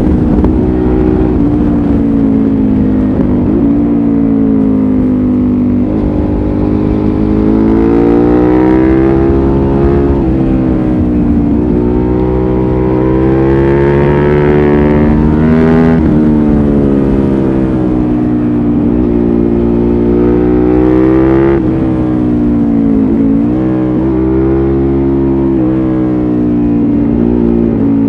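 2005 Suzuki SV650S's 645 cc V-twin running through a LeoVince exhaust with the dB-killer fitted, under way: the engine note rises repeatedly under acceleration and drops as the throttle is closed, several times over.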